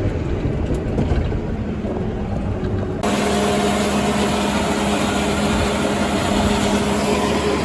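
Heavy farm machinery running: a low engine rumble that cuts abruptly about three seconds in to a louder, steady machine drone with a sustained hum, as grain is loaded into a semi-trailer.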